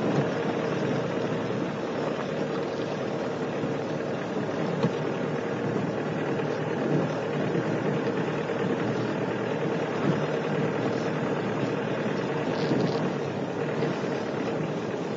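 Engine of an open safari vehicle running steadily as it drives along a dirt bush track, with a constant hum under rumbling road and wind noise.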